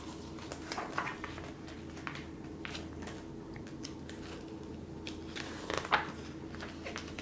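Glossy magazine pages being turned by hand: a series of short papery rustles and flicks, the sharpest about six seconds in, over a low steady hum.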